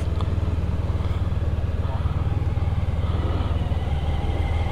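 Motorcycle engine running steadily at low revs, a constant low drone with no revving.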